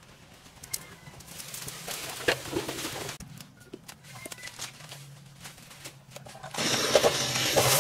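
Light knocks and rustling with a couple of short high chirps. About six and a half seconds in, a small engine starts suddenly and runs loudly.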